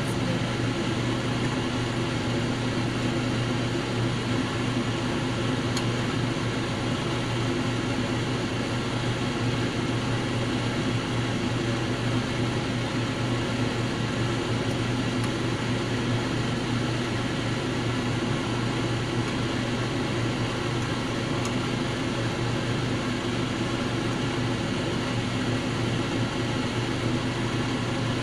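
Steady mechanical hum with a constant low tone, unchanging throughout, such as a fan or small appliance motor makes; a couple of faint light clicks now and then.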